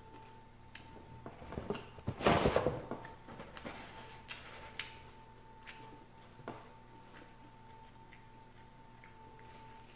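Paper napkins rustling and crinkling as they are pulled and rubbed over a face, loudest about two seconds in, followed by scattered small crackles. A faint steady hum runs underneath.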